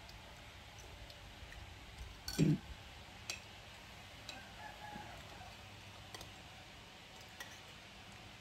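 Faint scattered clicks and taps, with one louder knock about two and a half seconds in.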